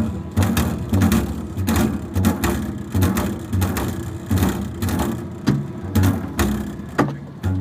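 Double bass played solo with percussive, rattling strokes about twice a second over low pitched notes.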